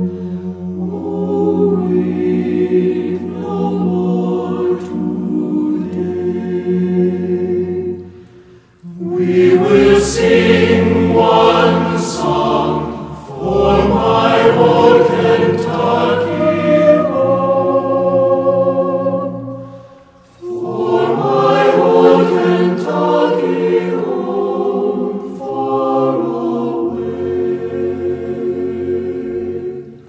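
Background music: a choir singing slow, drawn-out phrases, with two short breaks between phrases, about a third and two-thirds of the way through.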